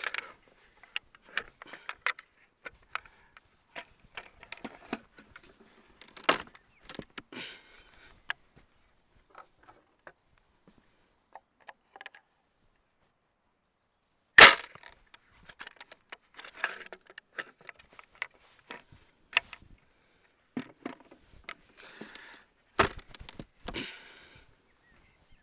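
Wooden gastraphetes crossbow being loaded and shot in quick succession: a string of wooden clacks and clicks from the slider, ratchet and trigger mechanism, broken by sharp cracks of the bow being released. The loudest crack comes about fourteen seconds in.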